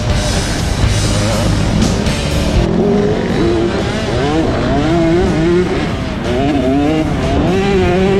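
Motocross bike engine revving hard, its pitch climbing and dropping again and again as the rider works the throttle and gears. Background music plays along.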